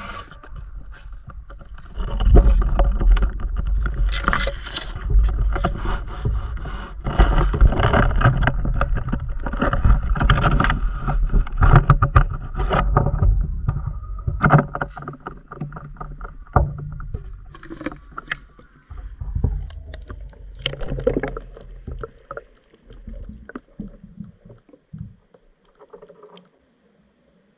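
Handling noise from a camera rig being carried through grass and lowered into a river: rustling, knocks and bumps over a heavy low rumble, with water sounds. It thins out and falls nearly quiet once the camera is under the water, near the end.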